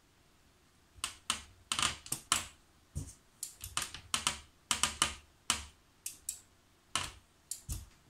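Front-panel buttons and knobs of a Hantek DSO5202P digital oscilloscope being pressed and turned by hand: a run of about twenty sharp plastic clicks at irregular spacing, starting about a second in.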